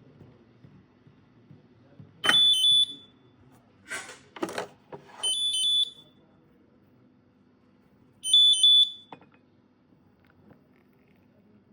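Coffee machine's electronic beeper sounding three short high-pitched beeps about three seconds apart, with two brief hissing bursts between the first and second beeps.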